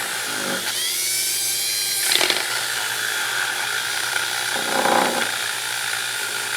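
Dremel rotary tool running at high speed, its bit working over the steel pliers to clean off rust, with the pitch sweeping as the load changes about a second in.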